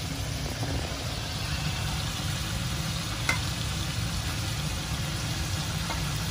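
Chicken pieces sizzling steadily in hot oil in a grill pan, over a steady low hum. A single light click about three seconds in.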